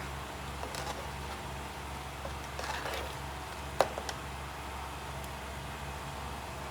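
Water leaf being added to a cooking pot: a brief rustle a little under three seconds in and a sharp tap of a utensil on the pot just before four seconds, with a few lighter clicks, over a steady low hum.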